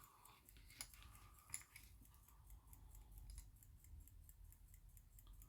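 Faint quick ticking of a J W Benson silver pocket watch's mechanical movement, about five ticks a second, with a couple of light handling clicks in the first two seconds.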